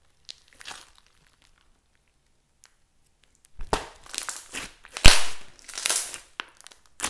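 Hands squeezing and kneading a thick slime with small beads mixed in. Only a few faint clicks at first, then from about three and a half seconds in a run of loud crackling and squishing, with a sharp pop about five seconds in, the loudest sound.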